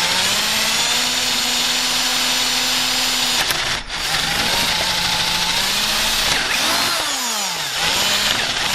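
Electric drill running, its bit boring through a broken hinge screw in the edge of a wooden door. The motor stops briefly about three and a half seconds in, then starts again. Near the end its speed drops and climbs back.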